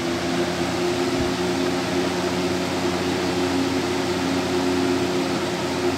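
Lasko B20401 Decor Colors 20-inch box fan running on its high setting: a steady rush of air with a constant motor hum underneath.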